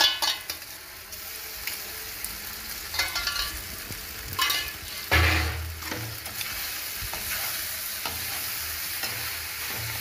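Metal spatula stirring boiled macaroni with onions and capsicum in a metal kadai over a steady sizzle of frying. Repeated scrapes and rattles against the pan, the loudest with a knock about five seconds in.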